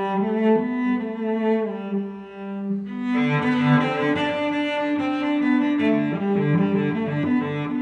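Background music led by bowed strings, slow sustained notes in the low and middle range; a fuller, lower part comes in about three seconds in.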